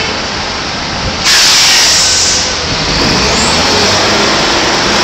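Construction-site machinery running steadily. A sudden loud hiss starts about a second in and eases off after about a second.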